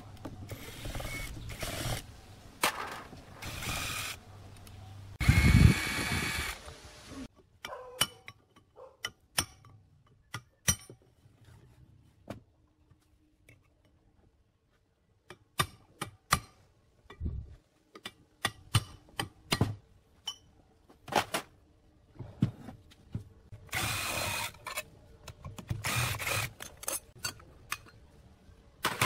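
Cordless drill unscrewing the fasteners of an old electric motor's housing in short whirring bursts, near the start and again late on. Between them come scattered sharp metal knocks and taps from a hammer and chisel working on the motor's cast housing.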